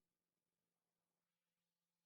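Silence: a soundless pause between two calls.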